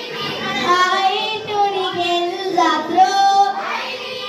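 Children singing a Nepali Bhailo song, led by a girl singing into a microphone in long, held melodic phrases.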